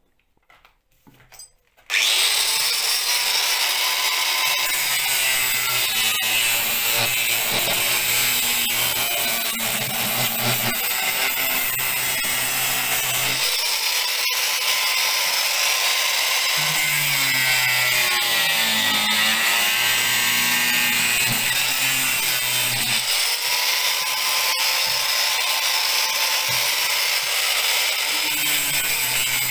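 Angle grinder with a metal-cutting disc starting up about two seconds in and cutting through a plastic jerrycan, running steadily with its pitch shifting as the disc bites into the plastic.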